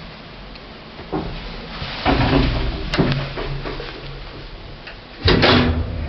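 An old passenger lift's doors sliding and clunking, with a low hum from the lift. The loudest pair of clunks comes about five seconds in.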